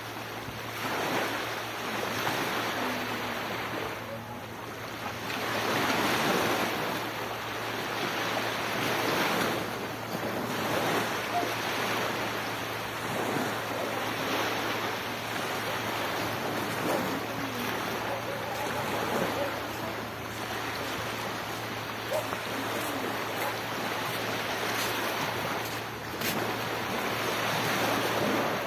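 Sea waves breaking and washing up the beach, the surf swelling and fading every few seconds.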